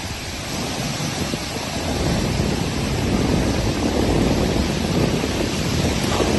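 Monsoon wind and rain: a steady rushing noise with heavy wind buffeting on the microphone, growing a little louder over the first few seconds.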